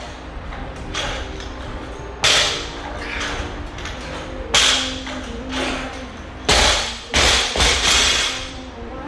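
Loaded barbell with bumper plates clanking and thudding: a handful of sharp impacts at irregular intervals, the loudest bunched together in the last third.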